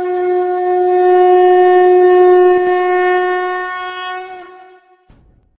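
Conch shell (shankha) blown in one long steady note with a bright, buzzing tone, swelling and then fading out after about three seconds.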